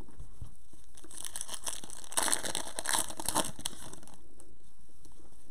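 Crinkly plastic rustling as trading cards are handled in disposable plastic gloves, starting about a second in, loudest in the middle and dying away after about four seconds.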